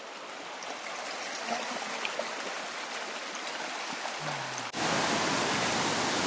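Steady rushing of stream water, with a few faint ticks; about three-quarters of the way through it jumps suddenly louder and fuller.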